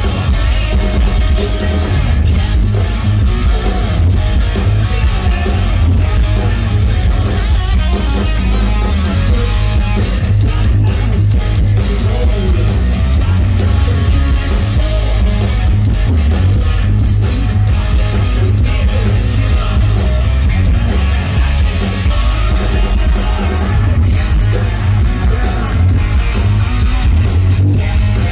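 Live rock band playing loud and steady: hollow-body electric guitar over bass guitar and drum kit, heard through a big stage PA.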